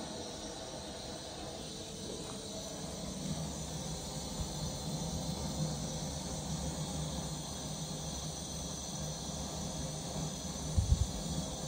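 Steady high-pitched insect chirring with a low hum underneath, and two dull thumps near the end.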